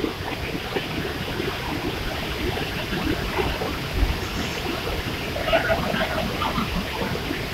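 Waterfall pouring down rocks into a pool: a steady, even rush of falling water.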